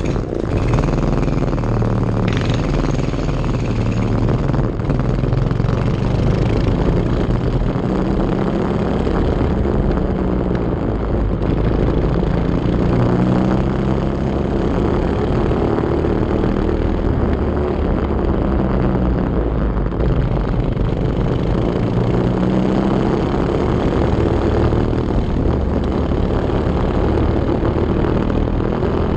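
Go-kart engine heard from on board, pulling away and running round the track, its pitch climbing and dropping again and again as the throttle opens and closes through the corners.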